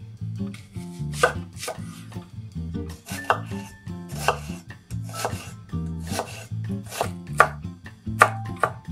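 A chef's knife dicing a peeled onion on a wooden cutting board: about a dozen crisp cuts, often in quick pairs, each blade stroke knocking through onto the wood.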